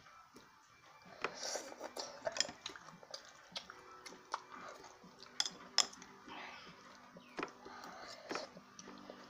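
Metal spoon clicking and scraping against a ceramic bowl while scooping rice, in scattered sharp clinks, with soft chewing between them.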